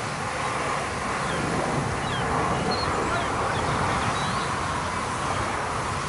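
Steady outdoor background noise on a football pitch, with a few faint, short high calls in the distance.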